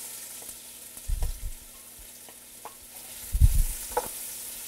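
Diced carrots, onions and celery sizzling in hot olive oil in a metal pot while a wooden spoon stirs them, with light clicks of the spoon against the pot. Two dull low thuds come through, about a second in and more loudly about three and a half seconds in.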